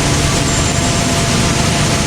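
Tractor engine running under load while a grain cart's unloading auger pours corn into a semi trailer: a loud, steady rushing noise over a low engine hum.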